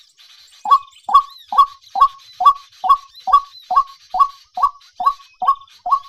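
White-breasted waterhen calling: a steady run of short, falling notes, a little over two a second, starting under a second in after a brief pause. Faint high chirping in the background.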